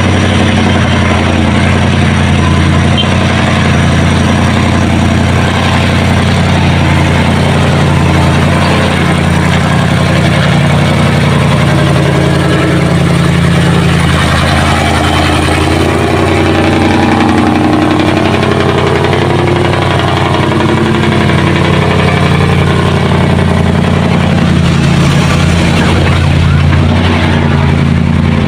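Truck engine running steadily, a low droning tone that holds even throughout.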